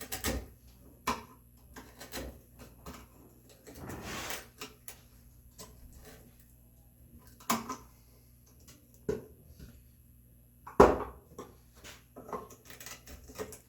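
Chisel work in a red oak mortise: scattered knocks and taps of steel on wood, a short scraping sound about four seconds in, and a sharp, loud knock about eleven seconds in.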